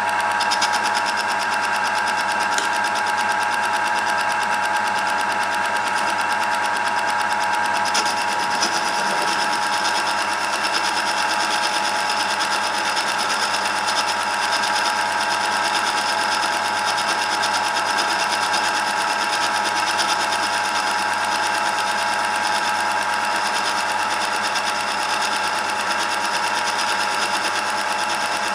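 Homemade metal lathe running steadily under power, its motor and drive giving a constant whine with several steady tones over a noisy hiss, while it takes a turning cut with the power feed engaged.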